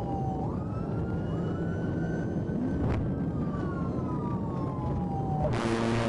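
Police car siren wailing, its pitch sweeping slowly down, rising quickly and falling again, over the Georgia State Patrol Dodge Charger's engine and road noise. About five and a half seconds in, a louder rushing noise and a steady low hum start.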